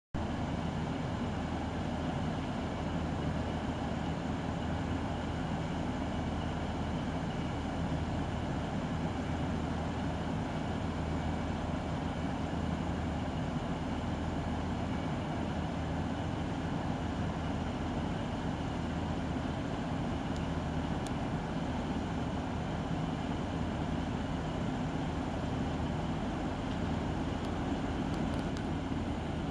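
Steady low drone of an idling diesel train engine, a few low pitches held unchanged in level throughout.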